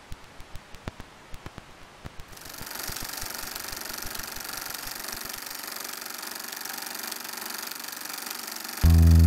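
Film projector starting up: a run of clicks, about three or four a second, then from about two seconds in a steady mechanical whir with hiss. Near the end a guitar music track comes in loudly.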